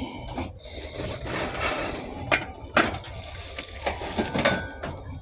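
Handling noise from a metal shopping cart and the goods in it: rattling and clatter with a few sharp knocks, two of them close together a little over halfway through.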